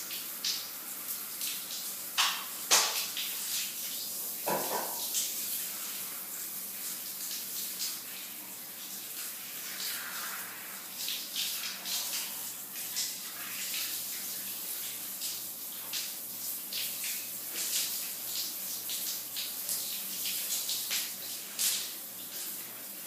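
Shower water running and spattering in a steady hiss, with irregular louder splashes as the spray hits surfaces.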